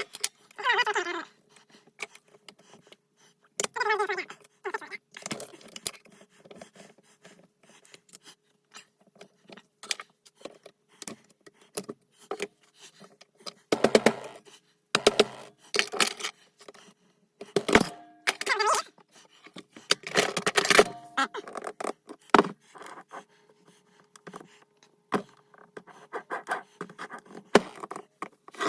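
Loose metal transfer-case parts clinking, knocking and scraping as they are handled and set down, in many separate sharp strikes, some with a brief metallic ring.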